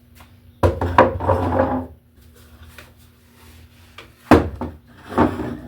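Knocks and rubbing of objects being handled and set down, in two bouts: one about half a second in lasting over a second, and another opening with a sharp knock about four seconds in. A faint steady hum runs underneath.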